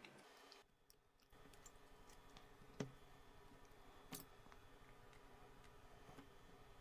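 Near silence with faint, sparse clicks from a small screwdriver driving screws into a Nokia Lumia 520's plastic frame, two sharper clicks about three and four seconds in.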